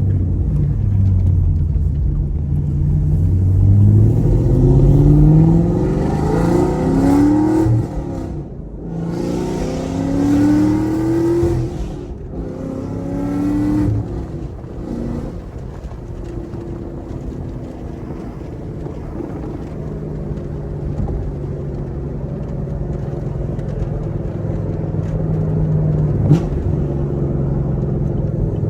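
Chevrolet Camaro SS 1LE's naturally aspirated 6.2-litre V8 with a manual gearbox accelerating: the engine note rises in three pulls, dropping away briefly twice as it is shifted up, then settles into a steady cruise for the second half. A single sharp click sounds near the end.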